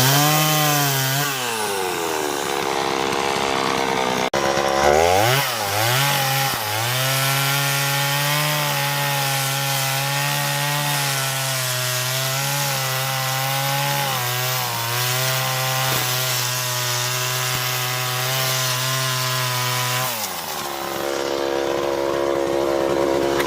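Two-stroke chainsaw revved to full throttle and cutting into wood, its pitch wavering slightly under load. It comes off throttle briefly near the start and drops back to idle about 20 seconds in.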